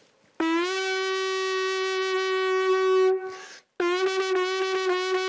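Conch shell trumpet blown in two long held notes. The first scoops up into pitch and holds steady, then fades. After a short break the second begins sharply and holds.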